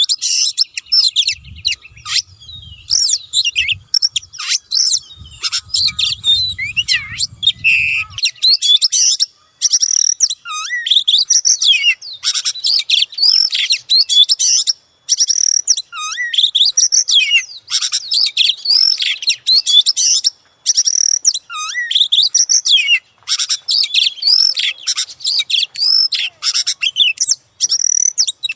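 Oriental magpie-robin (kacer) singing a long, rich run of varied whistles, chirps and trills, broken only by a few short pauses.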